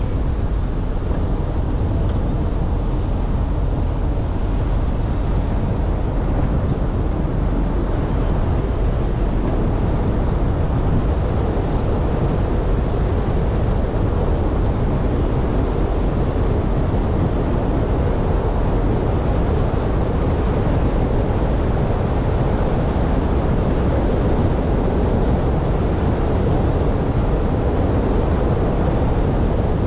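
Steady road noise of a car driving along a paved road: tyre rumble and wind noise, with no change in pace.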